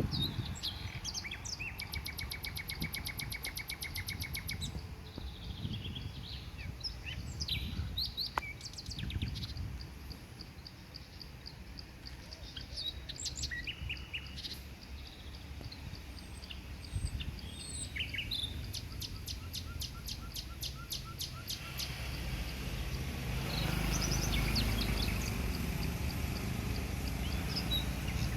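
Wild birds calling: scattered high chirps and short whistles, with a rapid trill about two seconds in and another about two-thirds through. Beneath them is a low steady rumble that grows louder near the end.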